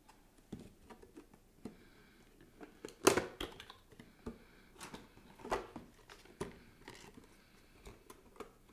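Handling of a boxed Pop! vinyl figure: a cardboard box slid out of a clear plastic protector case and its flap opened, giving scattered clicks, scrapes and rustles of plastic and cardboard. The sharpest knock comes about three seconds in.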